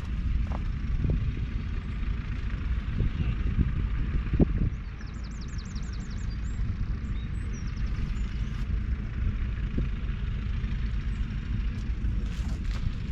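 Kubota M5-102 tractor's 3.8-litre four-cylinder diesel engine running steadily, with a sharp knock about four seconds in. A brief high, rapid trill of chirps is heard about halfway through.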